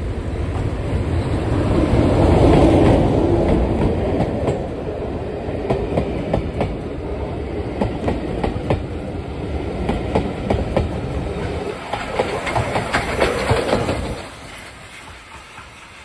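BR diesel locomotive running past close by, loudest about two to three seconds in, followed by its train of coaches, with the wheels clickety-clacking over the rail joints. The sound drops sharply about 14 seconds in.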